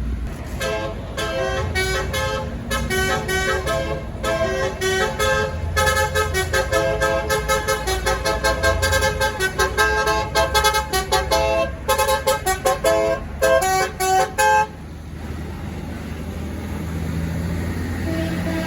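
Tour bus's multi-tone 'basuri' telolet horn playing a melody of short toots that step between pitches, quickening into rapid on-off blasts, for about fourteen seconds, then stopping. A vehicle engine runs low underneath.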